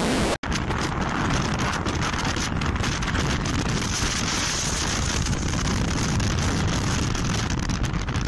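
A brief burst of hiss, then steady wind buffeting on the microphone over the road noise of a vehicle driving at highway speed.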